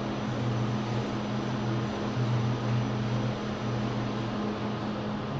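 Kone EcoDisc gearless traction lift car travelling between floors: a steady hum, with a lower drone that swells and fades a few times.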